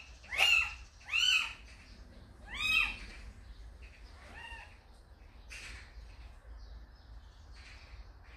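Small kitten mewing: three loud, high mews in the first three seconds, each rising and then falling in pitch, then a fainter one.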